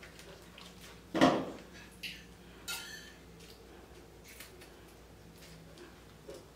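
Takeout containers and utensils being handled: a few soft clicks and taps, with one louder clack about a second in.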